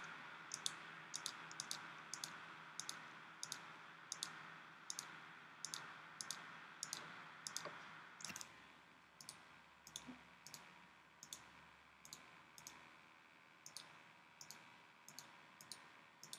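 Faint computer mouse clicks at a steady pace, about one every two-thirds of a second, many heard as a quick pair of press and release, each one filling a shape in a drawing program.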